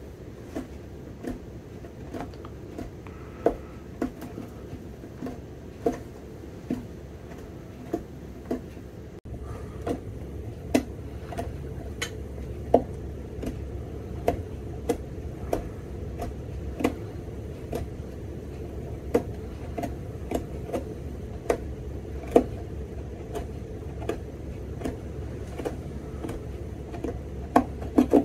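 Short sharp clicks, roughly one a second and irregular, as a hand stitch pick snaps out the stitches of a leather Goodyear welt on a boot, one at a time, over a steady low hum.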